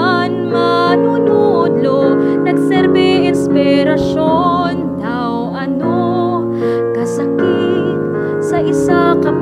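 Music: a song sung in Hiligaynon over piano accompaniment, the sung notes held with vibrato.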